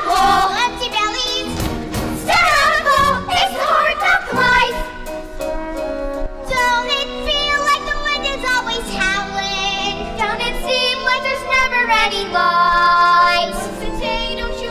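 Girls' voices singing a musical-theatre number over instrumental accompaniment.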